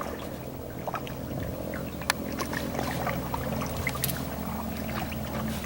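Canoe being paddled: faint water dripping and swishing from the paddle, with a few light knocks and one sharp click about two seconds in, over a low steady hum.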